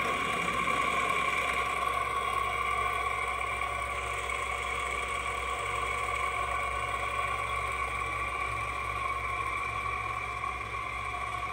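Seong Kwang SKR-1000 radial arm drill running free with its spindle turning at 360 rpm: a steady machine hum with a steady high tone over it.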